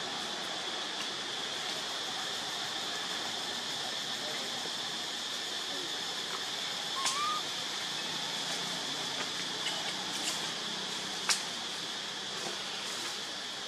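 Steady drone of insects over an even background hiss, with a few sharp clicks and one short rising squeak about seven seconds in.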